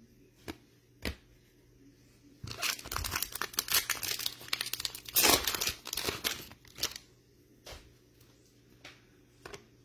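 A plastic trading-card pack wrapper being torn open and crinkled by hand: a few seconds of dense crackling that is loudest a little past halfway. Soft clicks of cards being handled come before and after it.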